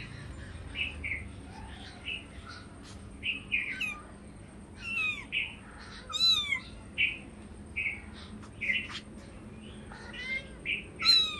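Kitten meowing about five times, high calls that fall in pitch, two of them close together near the end. Small birds chirp over and over in the background.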